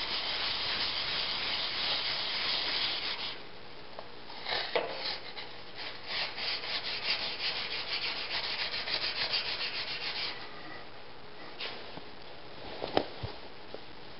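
Steel back of an old chisel rubbed on 150-grit wet/dry sandpaper to flatten it, a scratchy hiss. First one steady stretch of about three seconds, then after a short pause a run of quick back-and-forth strokes, and a light knock near the end.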